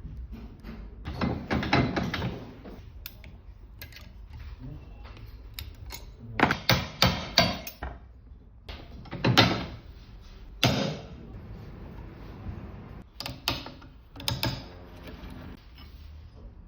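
Metal knocks and clanks from hand-tool work on a Renault 1.9 dCi turbocharger during its overhaul: a quick run of strikes about a second in, another run after about six seconds, then single knocks a few seconds apart.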